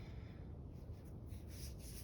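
Fingers rubbing over a polyester football jersey's fabric, a faint scratchy rustle that starts about halfway through.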